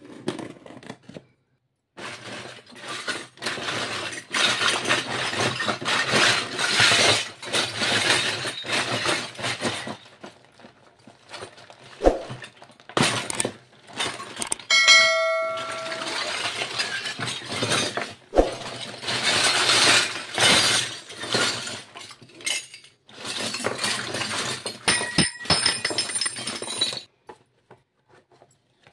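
Crinkling and rustling of plastic packaging and cardboard as a box of miniature toy kitchenware is opened and handled. About halfway through a small steel utensil rings once with a clear metallic ring, and toy pots clink faintly near the end.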